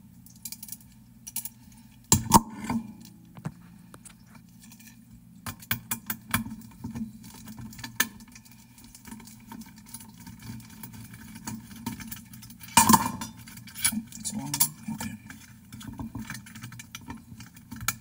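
Screwdriver backing out small screws from an actuator's circuit board and plastic housing: scattered clicks, scrapes and light metallic clinks of tool and parts, with two sharper knocks, one about two seconds in and one about thirteen seconds in.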